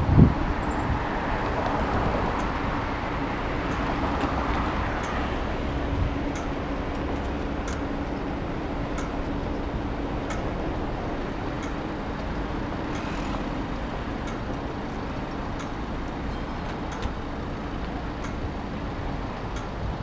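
Steady city road-traffic noise at an intersection, with a sharp thump right at the start. A faint low drone runs through the middle, and faint sharp ticks come about once a second.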